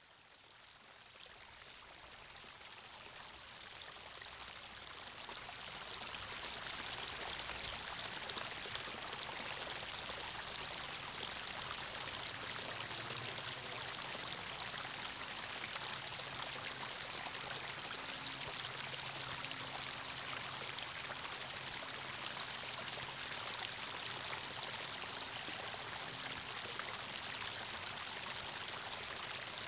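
Water running and splashing over a small stone-step cascade into a pond, a steady rushing that fades in from silence over the first several seconds and then holds level.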